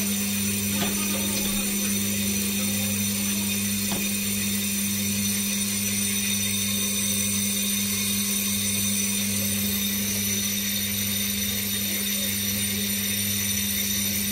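Brake lathe running, turning a brake disc on its arbor to resurface it: a steady motor hum with a low throb that pulses at a regular rhythm, and a thin high ringing over it.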